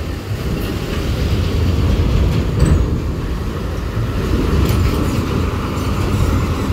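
A large diesel coach engine rumbling at low revs as the coach climbs a steel ferry loading ramp into the car deck, with a few faint clanks from the ramp under its wheels.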